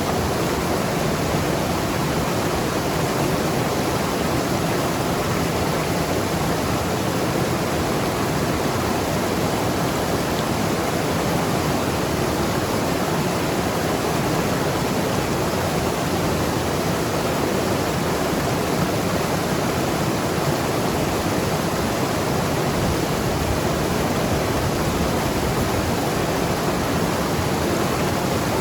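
Mountain river rushing and tumbling over rocks, a steady, even rush of water.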